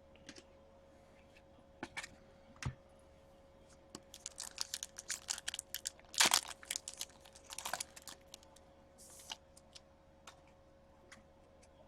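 Handling of trading cards and their packaging: scattered clicks and short crinkling, crackling rustles, busiest and loudest in the middle, over a faint steady hum.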